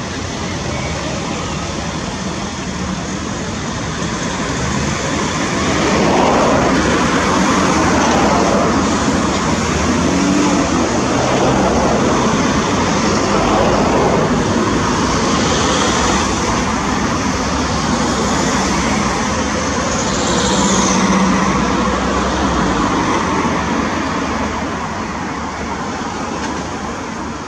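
Steady rumble of road traffic and heavy diesel machinery, swelling from about six seconds in and easing off in the last few seconds.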